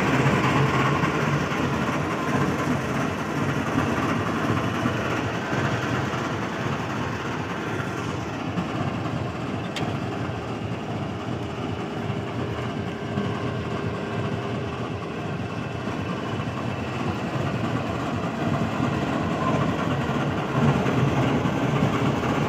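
GEU-40 diesel-electric locomotive standing and idling steadily, heard close alongside.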